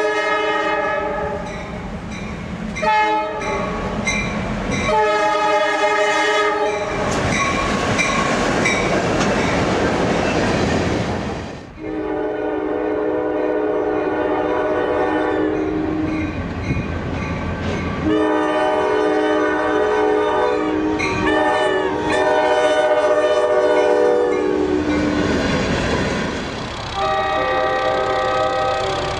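Multi-chime diesel locomotive air horns sounding a series of long and short blasts, each a chord of several notes; between about 7 and 11 seconds in, the rumble of a passing train takes over, and from about 12 seconds in the horn chord is lower.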